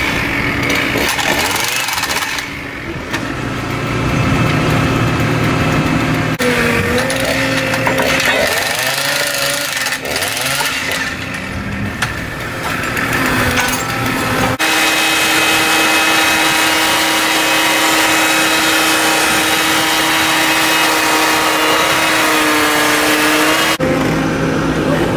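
Engines of track-work machinery running: first a handheld petrol power tool working on the track fastenings, then hydraulic excavators lifting a rail and carrying concrete sleepers. The engine pitch rises and falls through the middle part, then holds a steady note.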